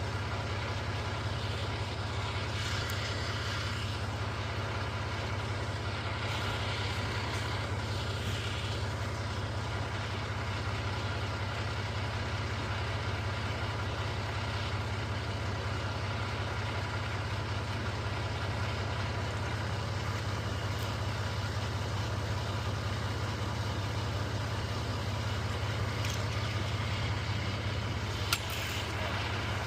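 Heavy diesel truck engine running steadily with an even, unchanging drone, typical of a concrete mixer truck.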